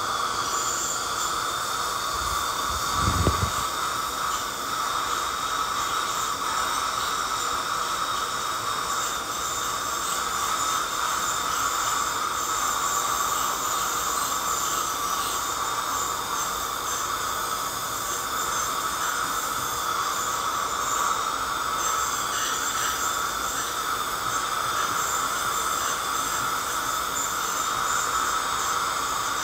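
Ultrasonic dental scaler running against heavily tartar-coated teeth: a steady high whine over a hiss of water spray, with one brief low thump about three seconds in.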